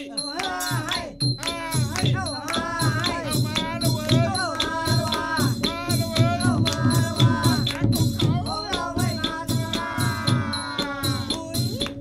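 Background music: a singing voice over a steady shaker rhythm, a held drone and a pulsing bass.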